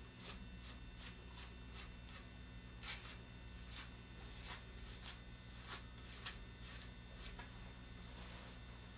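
Slicker brush stroked repeatedly through a Shih Tzu's long coat: faint, short brushing swishes about two to three a second, stopping near the end. A low, steady mains hum runs underneath.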